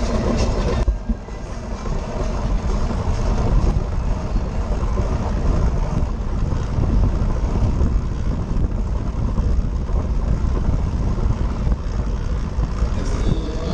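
Wind buffeting the microphone of a handlebar-mounted action camera on a track bike racing at speed: a steady, loud, low rumble.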